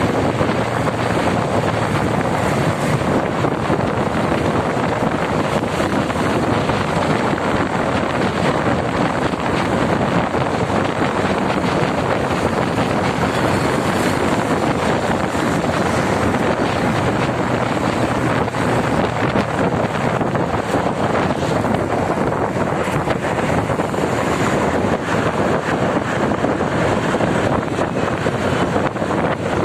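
Steady rush of wind and road noise from a vehicle moving along a highway, with wind buffeting the microphone.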